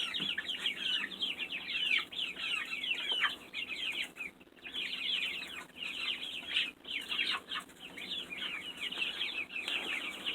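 A flock of chickens clucking while feeding, many short falling calls overlapping in a continuous stream, with a brief lull about four and a half seconds in.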